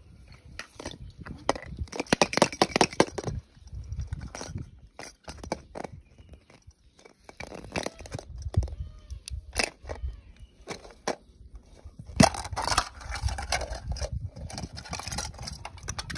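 Hands handling hard plastic toys: plastic eggs and small die-cast toy cars. An irregular string of clicks and knocks, with stretches of rustling about two seconds in and again near the end.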